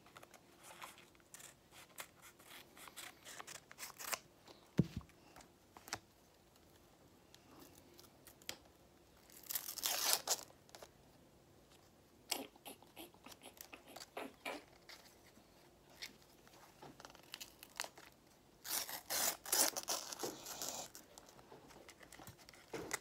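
Scissors snipping open a paper sticker pack, then the wrapper crinkling and the stickers rustling as they are handled. Small clicks and rustles run throughout, with two longer bursts of crinkling, one about ten seconds in and one near the end.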